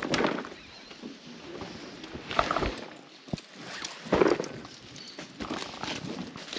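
Footsteps: a few irregular scuffing steps about two seconds apart, with a short sharp knock about three seconds in.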